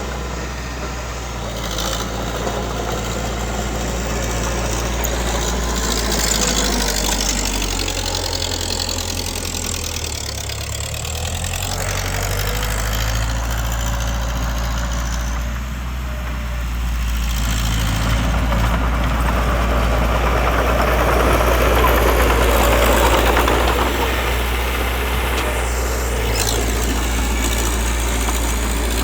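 Diesel engine of heavy earth-moving machinery running, its load and pitch shifting as it works, with a louder, rougher stretch about two-thirds of the way through.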